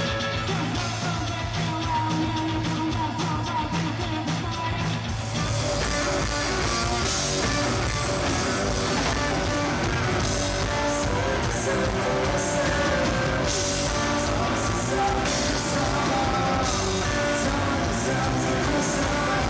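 Rock music with singing and guitar, getting fuller and brighter about five seconds in.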